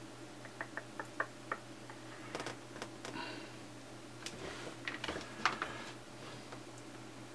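Oscilloscope probe clicking and scraping against the pins and metal shell of a DMX lead's connector while it is being probed for a signal: a quick run of about five light ticks about a second in, then irregular clicks and rubbing, the loudest a little after five seconds. A faint steady low hum sits underneath.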